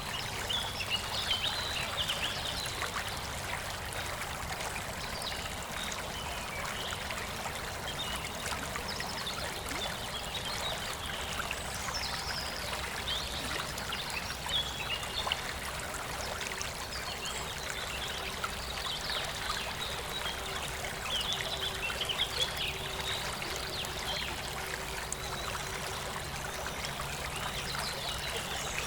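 River flowing steadily in a forest, with songbirds chirping in short flurries over it: about a second in, around the middle, and several times in the second half.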